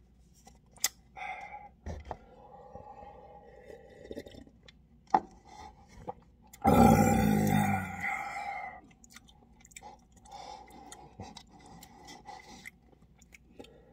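Close-up eating sounds of cup instant noodles being chewed, with scattered small mouth clicks and smacks, and one louder burst of about two seconds near the middle.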